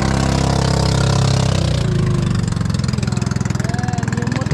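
Small outrigger boat (bangka) engine running steadily. About two seconds in the sound changes to a closer, rapid, even chugging, the engine of the boat under way.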